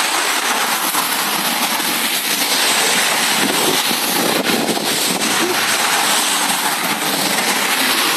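Strong thunderstorm wind gusting through trees, a loud, steady rushing noise.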